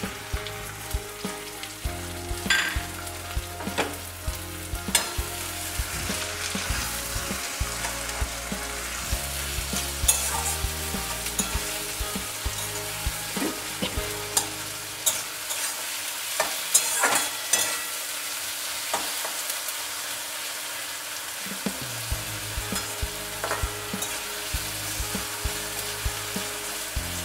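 Sliced onions sizzling in hot oil in an aluminium karahi, stirred with a metal spatula that clicks and scrapes against the pan; the onions are frying toward a reddish-brown.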